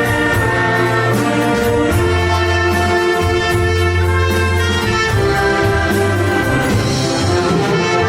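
Wind orchestra playing a Korean pop-song medley arrangement, brass leading over sustained chords and a steady bass line.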